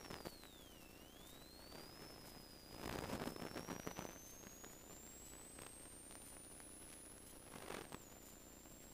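Faint high-pitched electronic whistle that dips in pitch, comes back up and then slowly climbs, with a short burst of static-like noise about three seconds in and a briefer one near the end.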